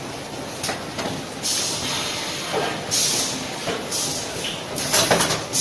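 Plastic-bag packing machine running, with a steady mechanical background broken by short, repeated hissing bursts and clacks.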